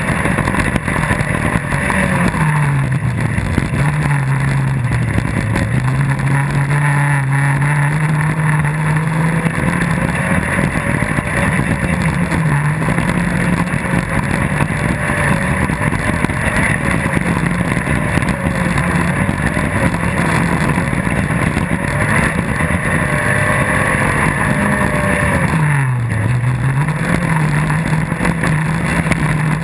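Off-road rally buggy's engine heard on board, running hard along a dirt stage. The engine note mostly holds steady but drops sharply and climbs back a few times, most deeply near the start and near the end.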